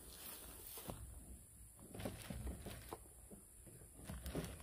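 Faint rustling and light clicks as a plastic bag of marshmallows is handled and dipped into.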